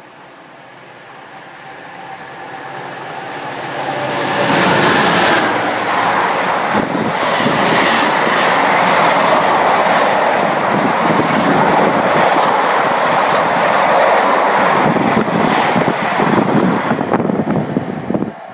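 Container freight train running through at speed. The locomotive's approach builds over the first few seconds, then a steady loud rumble with the clatter of wheels on rail as the container wagons pass, falling away sharply near the end as the last wagon goes by.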